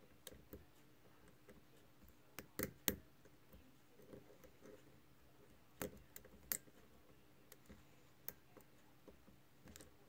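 Small, sharp metallic clicks and taps, scattered irregularly, from a hook pick and tension wrench working the pin stack of an American Lock 1100 padlock's cylinder during single-pin picking. The loudest clicks come in two clusters, a few seconds apart.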